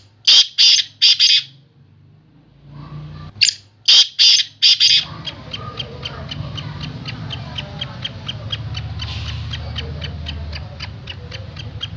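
Black francolin calling twice: a phrase of four loud, grating notes at the start and another of about five notes around four seconds in. After that, a steady low rumble with sharp clicks about four a second.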